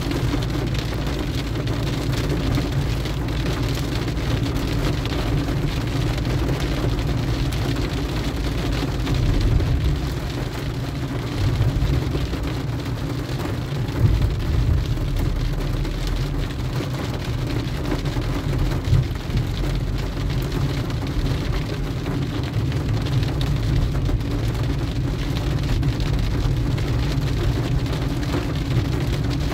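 Rain falling on a car's roof and windshield, heard from inside the moving car, over a steady low rumble of engine and wet tyres. A few short knocks stand out, the clearest about halfway through.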